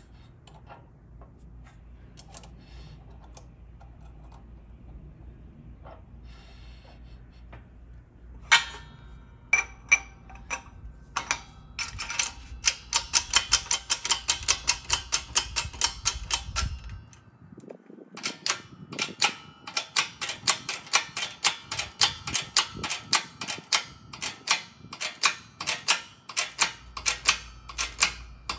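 Hydraulic shop press pumped in short strokes to drive a new bushing into a transmission sun gear: after a knock, a fast run of sharp metallic clicks, about three to four a second, with a brief pause partway through.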